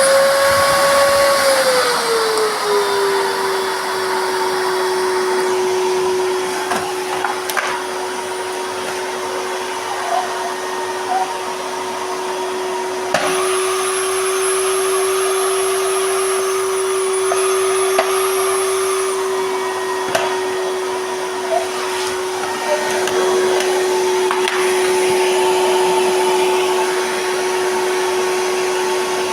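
Miele White Pearl XXL (S5281) canister vacuum cleaner running with a steady motor hum. About two seconds in, the motor's pitch drops and then holds steady. Light knocks and a faint high whistle come in partway through.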